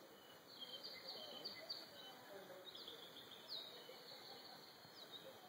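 Forest birds singing faintly: a run of high chirps and trills starts about half a second in, with several quick downward-sweeping notes and a lower warbling beneath, over a steady background hiss.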